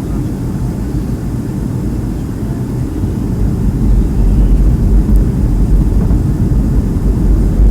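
Cabin noise inside a Boeing 757 airliner on approach: a steady low rumble of engines and airflow, growing louder about four seconds in.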